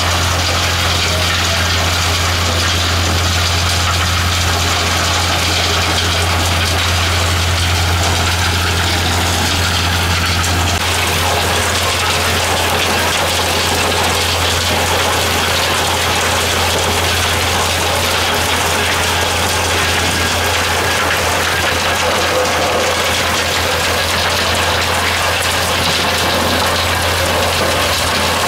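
Gold-mining trommel running: a steady low drive hum under the dense hiss of water spray and material churning in the turning drum, with the drum's gear drive working.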